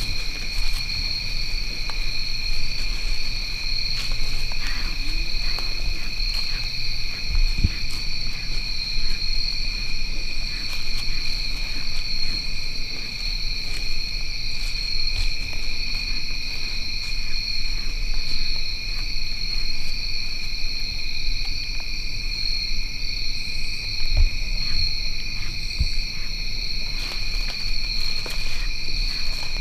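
Steady, unbroken high-pitched chorus of insects such as crickets, with a low rumble and a few light knocks underneath.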